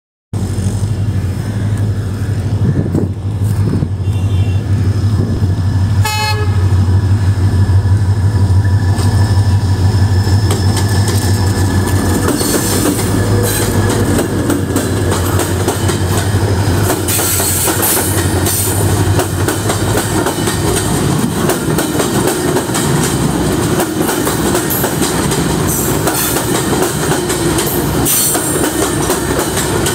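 A freight train of covered wagons passing at low speed: a steady low locomotive hum for the first half, a short horn blast about six seconds in, then the rumble and clickety-clack of the wagons' wheels over the rail joints.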